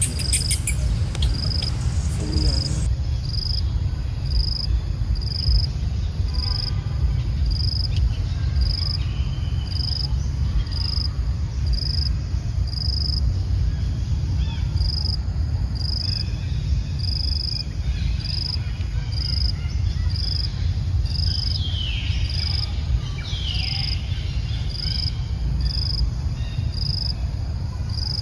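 An insect chirping in a steady rhythm of about one short, high chirp a second over a constant low rumble. A few brief falling calls come in the second half.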